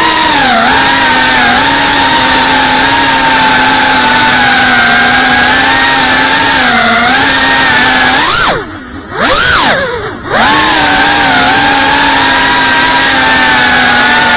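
Cinewhoop FPV drone's brushless motors and propellers whining at a fairly steady pitch, close-up on the drone's own camera. About two-thirds of the way in, the whine drops away twice and swoops back up each time as the throttle is cut and punched again.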